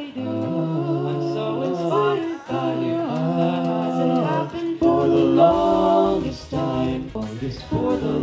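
Male a cappella group singing in harmony into microphones, several voices holding chords that shift every second or so.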